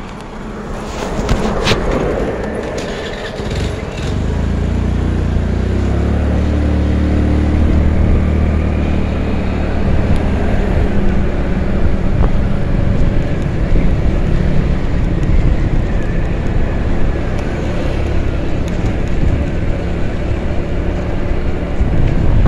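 Riding a motor scooter: a steady low rumble of the moving scooter, mixed with air rushing past, which grows louder about four seconds in as it gets under way and then holds steady. There are a few sharp clicks in the first two seconds.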